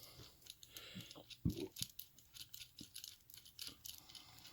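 Faint, scattered clicks and light taps of small metal tools and lock parts being handled while a padlock is taken apart, with one duller knock about a second and a half in.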